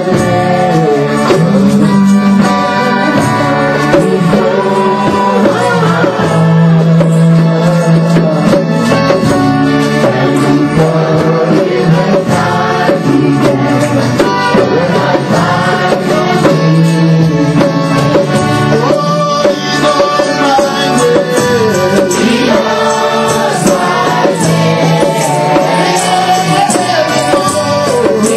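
Worship song: voices singing a melody over instrumental accompaniment with a steady low bass and light percussion.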